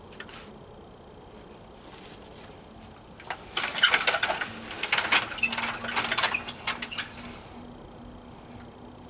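Small metal parts clinking and rattling in quick clusters for about four seconds midway, with a quiet steady background before and after.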